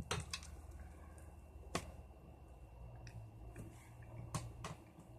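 A person chewing a bite of breaded fried chicken close to the microphone: scattered wet mouth clicks and smacks, about half a dozen, over a low steady hum.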